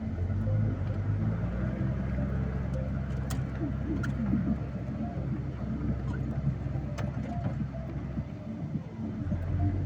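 A vehicle's engine running steadily, dropping away briefly about eight seconds in and then picking up again.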